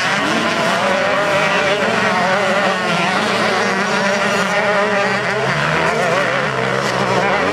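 A pack of MX2 motocross bikes racing through a turn, many engines overlapping and revving up and down as the riders work the throttle.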